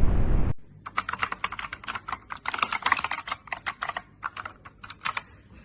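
Rapid, irregular typing on a Neolution E-Sport AVATAR mechanical gaming keyboard, starting about a second in and stopping shortly before the end. Before it, a loud rushing noise cuts off abruptly about half a second in.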